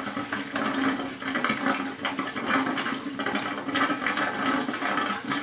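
Water gurgling and rushing as a solar water heater system drains through garden hoses into a bucket, air being let in to purge the water from the roof collector. Steady and uneven, with a faint low hum underneath.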